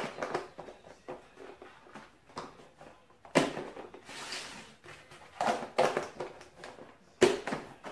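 Plastic meal-prep containers being lidded and stacked: a few sharp plastic clacks and knocks with faint rustling between, the clacks clustering in the second half.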